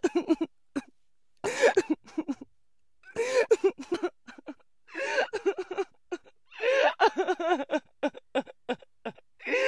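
A person sobbing in a string of short, broken bursts of crying with brief silences between them.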